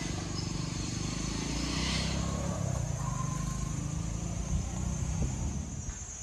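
A motor vehicle engine running steadily in street traffic.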